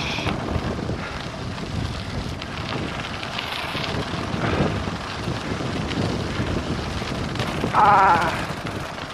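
Wind buffeting the microphone of a helmet-mounted camera on a fast bicycle descent down a gravel road: a steady, rough rush. Near the end comes a brief, louder high-pitched sound that wavers.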